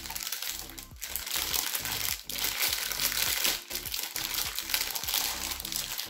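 Clear plastic packaging crinkling and rustling as a pop-it fidget toy is pulled open and worked out of its bag.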